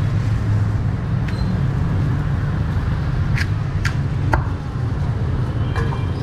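Cleaver chopping roast pork on a round wooden chopping block. Three sharp chops come close together a little past the middle, with fainter ones before and after, over a steady low rumble.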